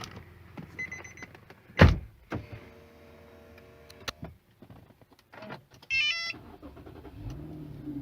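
A run of sounds from the Infiniti FX37S. There is a loud knock about two seconds in, then a small motor whirs for about two seconds. A short run of electronic beeps comes around six seconds, and near the end the 3.7-litre V6 engine starts and settles into a steady run.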